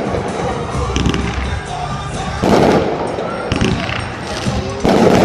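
Fireworks bursting: two loud booms about two and a half seconds apart, with fainter pops between them, over music playing in the background.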